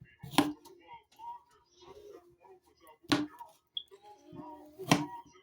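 Kitchen knife chopping through peeled sausage: three sharp chops, spread a couple of seconds apart.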